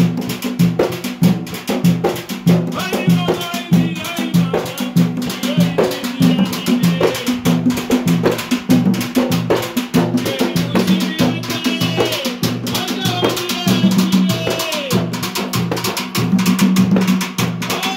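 Live chigoma music, the traditional Comorian/Mahoran dance: large double-headed barrel drums beaten in a steady repeating rhythm, with voices singing over it through the microphones.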